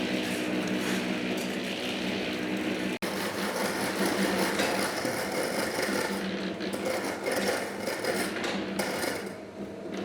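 Electric concrete mixer running steadily, a motor hum with rattle on top. It breaks off abruptly for an instant about three seconds in and dies down near the end.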